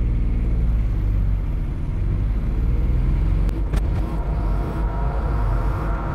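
Kubota three-cylinder 719cc turbo diesel in a Saturn coupe, heard from inside the cabin, running under acceleration at the start of a test run. About four seconds in, the footage is sped up tenfold, and the engine sound turns into a steady, higher-pitched drone.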